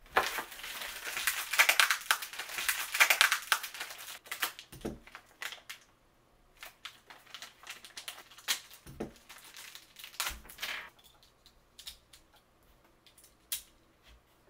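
Cardboard packaging being torn open and crushed for about four seconds. After that come scattered sharp clicks and taps as Beyblade X top parts are handled and fitted together, with a few soft thumps on the desk.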